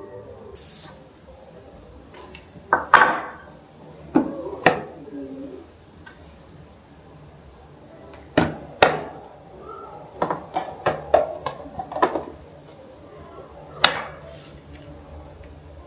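Plastic food-storage containers, lids and a tofu tray being handled and set down on a countertop: a series of sharp clacks and knocks, with a run of quick small taps about two thirds of the way through.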